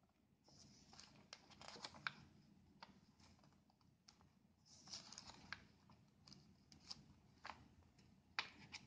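Faint rustling and crisp crackling of paper as the pages of a small printed instruction manual are handled and turned, in several short bursts.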